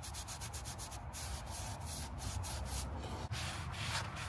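A shop rag damp with brake cleaner rubbing across the friction lining of a drum brake shoe in quick repeated wiping strokes, cleaning grease off the shoe.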